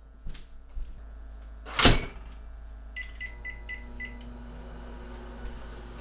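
Kenmore over-the-range microwave: its door shut with a loud knock about two seconds in, then a quick string of short keypad beeps as the cooking time is entered, and the oven starts running with a steady low hum.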